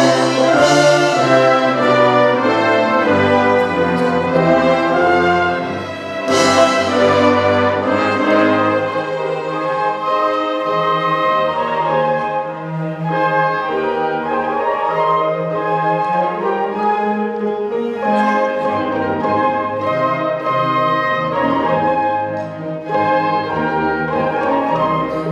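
Full youth orchestra of strings, woodwinds, saxophones and brass playing a classical-style orchestral piece, with the brass prominent. Two bright accents come near the start and again about six seconds in.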